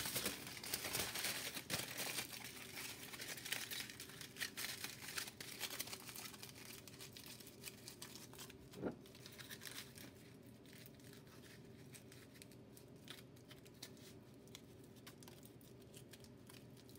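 Aluminium foil being scrunched and crumpled by hand into a shape: a faint, dense crackling that thins out in the second half. A single knock about nine seconds in.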